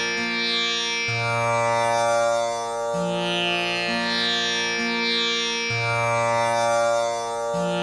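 Tanpura drone: four strings plucked in turn (Pa, Sa, Sa, then the low Sa held longest), the cycle repeating about every four and a half seconds with a steady shimmering ring. It gives the tonic Sa for a singer to practise against.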